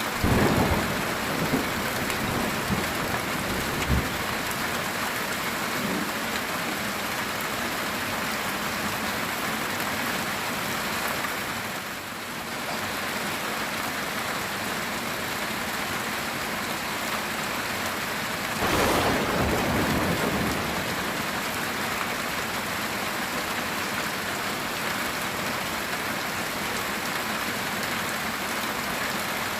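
Heavy rain drumming steadily on a metal tin roof. Thunder rumbles right at the start, with a sharp crack about four seconds in, and a second roll of thunder comes about nineteen seconds in.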